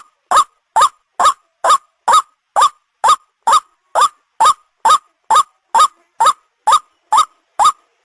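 White-breasted waterhen (ruak-ruak) call repeated steadily about twice a second, each short note sliding up then down in pitch, played as a lure to attract the bird.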